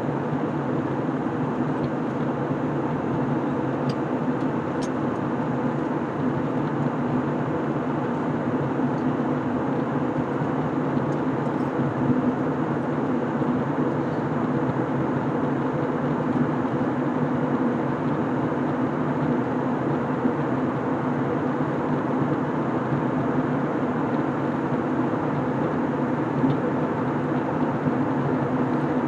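Steady cabin noise inside an Airbus A321 in flight: the even rush of engines and airflow, with a few faint steady tones running through it.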